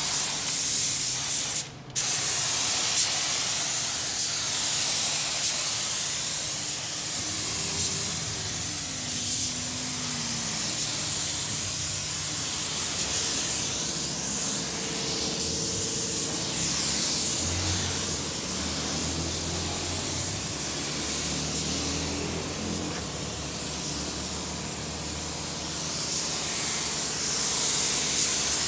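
Sagola gravity-feed paint spray gun spraying paint: a steady high air hiss that briefly cuts out just before two seconds in.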